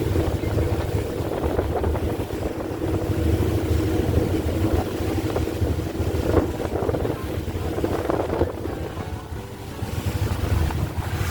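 Large passenger ferry's engine running with a steady low drone, mixed with wind on the microphone and the wash of waves in choppy water.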